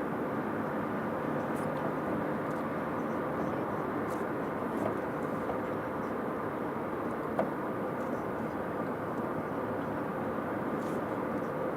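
Steady engine and road noise heard inside a moving car's cabin, with a brief click a little past halfway.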